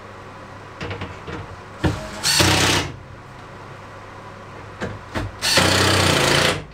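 Cordless drill-driver driving screws into wood, in two short runs: a brief one about two seconds in and a longer one about five and a half seconds in, with a few small knocks and clicks before each as the screw and bit are set.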